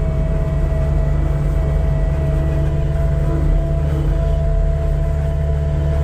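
Cat 262D skid steer's diesel engine running steadily at high throttle, heard from inside the cab: a constant low drone with a steady higher tone over it.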